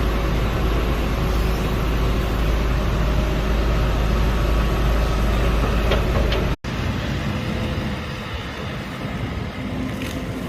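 Heavy earthmoving machine's engine running steadily with a low rumble. It cuts off abruptly about six and a half seconds in and a lighter, steady engine hum follows.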